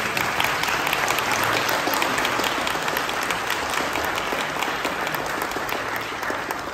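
Crowd applauding: many people clapping steadily, dying away near the end.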